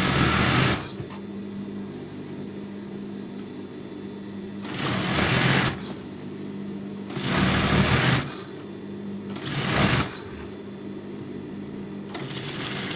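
Industrial sewing machine stitching along a fabric edge in five short runs of about a second each, its motor humming steadily between the runs.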